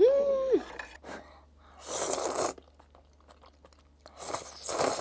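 A short closed-mouth hum, then two loud slurps of noodles, one about two seconds in and a longer one near the end.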